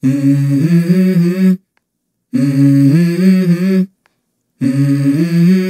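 A voice humming a short wordless melodic phrase, three times over, each phrase about a second and a half long with abrupt silences between.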